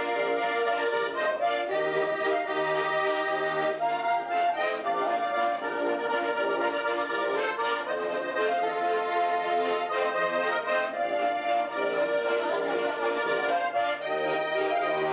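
Accordion music playing continuously, a sustained tune with no breaks.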